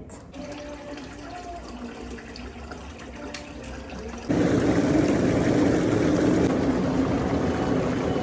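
Hot tub jets switching on suddenly about four seconds in, then a loud, steady churning of bubbling water.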